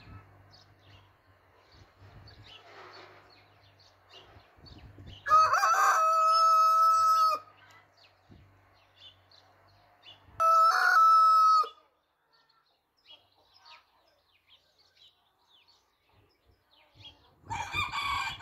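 Rooster crowing twice: a long crow about five seconds in and a shorter one about ten seconds in, with faint scattered chirps around it.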